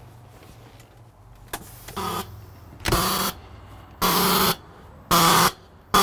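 Brake Releaser de-icer on a tractor-trailer's red emergency air line giving short honking buzzes, four or five about a second apart, getting louder from about two seconds in. The trailer's air pressure is driving the de-icing fluid through to the trailer's frozen brake lines. A low steady hum runs underneath.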